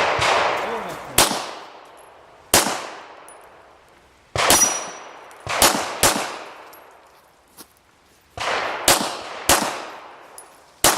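Pistol shots fired in a competition stage course of fire: about ten sharp reports at an uneven pace, some in quick pairs, each followed by a long echoing decay.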